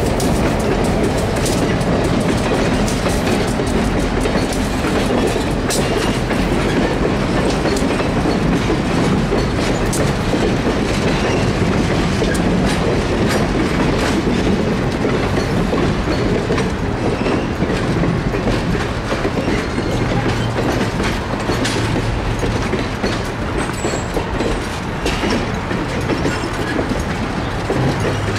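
Passenger railcar rolling along the track, heard from inside the coach: a steady rumble of wheels on rail with scattered sharp clicks.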